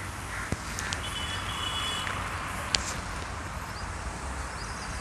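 Steady outdoor background noise with a low hum, broken by a couple of sharp clicks and a brief high, steady tone about a second in.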